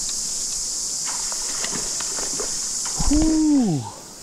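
Cicadas buzzing in a steady high-pitched chorus, with a few light clicks. Near the end a man's voice gives one short exclamation that falls in pitch.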